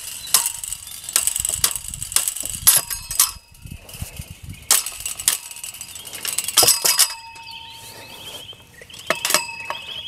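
Metal striking galvanized chain-link fence hardware: a wooden-handled hand tool is used to knock the tension bar and bands at the post loose. The blows come as an irregular string of sharp clanks that ring, in bursts with two short pauses.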